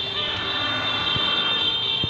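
New Year's Eve noisemaking: a steady, overlapping din of several held high-pitched tones from noisemakers, with a couple of faint distant firecracker pops.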